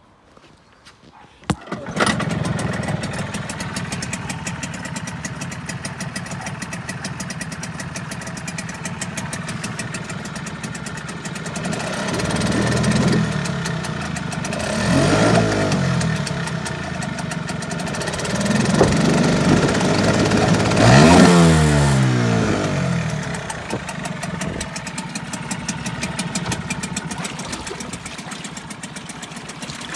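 Suzuki DT4 4 hp two-stroke outboard starting about two seconds in and running. It is revved up and back down with the tiller twist-grip several times through the middle, then settles back to a steady idle.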